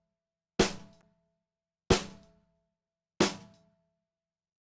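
A snare drum struck three times in an even rhythm, about 1.3 seconds apart, each hit sharp and dying away within half a second with a short ring of the drum.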